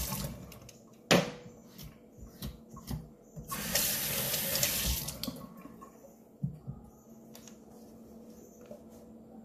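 Kitchen tap water running into a stainless steel sink while a piece of peeled ginger is rinsed under it. The water runs in two short spells, stopping early on and again at about five seconds. A sharp knock comes about a second in, and a few lighter clicks and knocks come in between.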